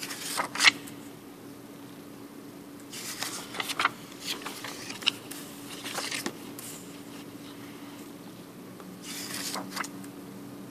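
Crisp paper banknotes rustling and crinkling as they are handled and turned over on a wooden table, in about four short bursts, over a faint steady hum.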